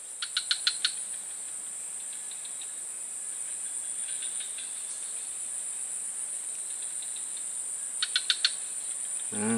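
Steady, high-pitched drone of an insect chorus. A quick run of about five sharp clicks comes just after the start and again near the end.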